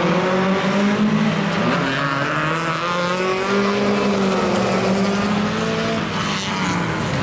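Rallycross Volvo saloons racing past at full throttle. Several engine notes rise and fall together as the cars rev and shift gear.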